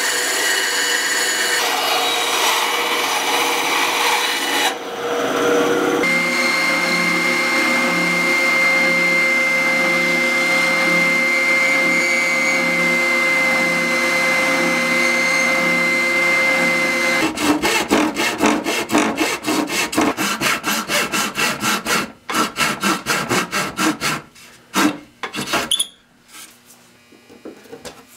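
A Powertec bandsaw runs and cuts through a wooden board. An oscillating spindle sander follows, running with a steady whine and a pulsing hum from the spindle's up-and-down stroke as wood is pressed against it. Then come quick rasping strokes on wood, about four a second, and near the end a few sharp hammer blows on a chisel.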